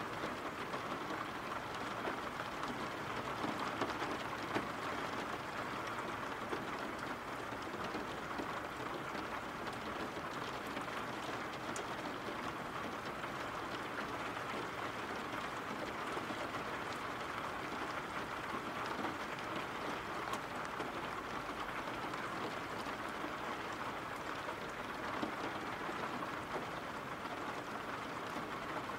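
Steady rain falling, an even hiss with scattered ticks of single drops.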